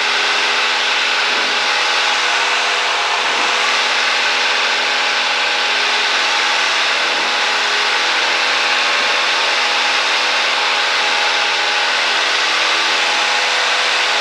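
Steady cabin noise of a Cessna 172 in flight: the engine and propeller running evenly under power, with rushing air, holding one steady pitch throughout.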